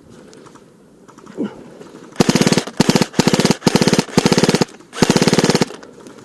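Airsoft rifle firing full-auto in about six short bursts of rapid shots, starting about two seconds in and stopping near the end.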